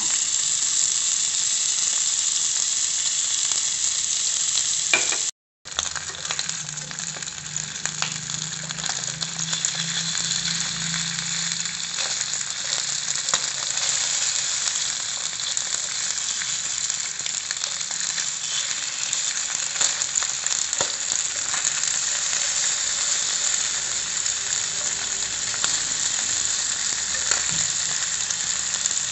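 Salmon strips shallow-frying in oil in a nonstick pan: a steady sizzle with fine crackling, joined by light clicks of a metal turner as the pieces are flipped. The sound drops out completely for a moment about five seconds in.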